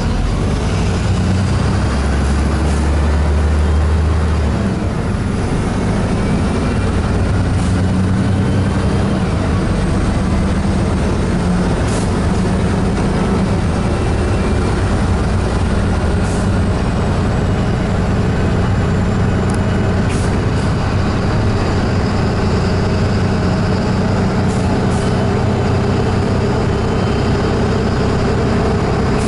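Steady engine and road noise heard from inside a large vehicle driving in city traffic. A deeper low hum swells for a couple of seconds near the start.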